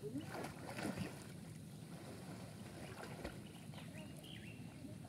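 Water lapping and splashing softly as a person swims through a hot-spring pool.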